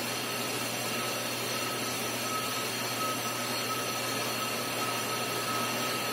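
Brake lathe running steadily while machining a brake drum: a constant mechanical hum with a high steady whine that grows a little stronger about two seconds in.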